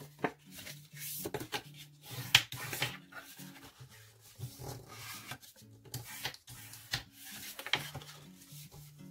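Sheet of patterned scrapbook paper being folded and creased by hand along marked lines: a run of irregular dry scrapes and rubs, with a few sharper strokes.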